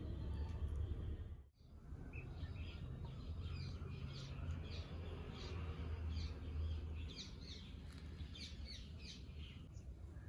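Small birds chirping, many short calls one after another, over a low steady rumble. The sound cuts out briefly about a second and a half in, then the chirping starts.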